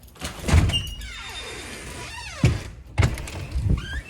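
A door thunks open with a thud, followed by a steady hiss of heavy rain for a second or so, then several more thuds as the door is handled.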